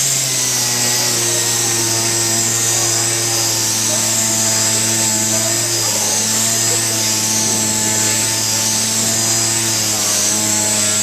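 Air-powered mini sander running steadily with a constant hum and hiss, dry sanding a polycarbonate headlight lens with a 500-grit disc to refine the surface after the factory coating has been sanded off.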